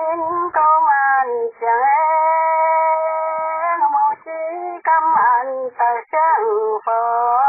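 A voice singing a slow, unaccompanied song in long held notes that waver and slide between pitches, phrase after phrase with short breaths between.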